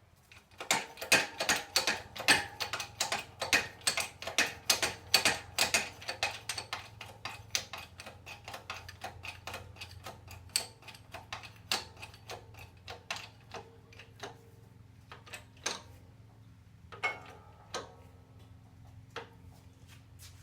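Rapid metallic clicking and ticking as the 20-ton shop press is worked against a 1956 GMC door hinge and its pin, fast for the first several seconds and then thinning out to scattered clicks.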